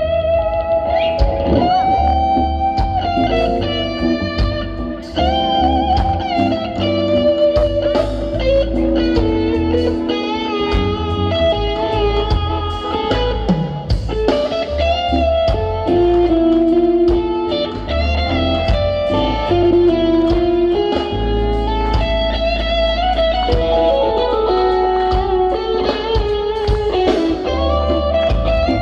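Live band playing a soul groove, with electric guitar prominent over bass, keyboards and drums.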